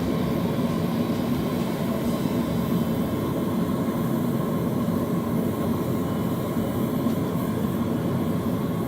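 Forge running steadily during a blade's heat treat, an even low rumble without change.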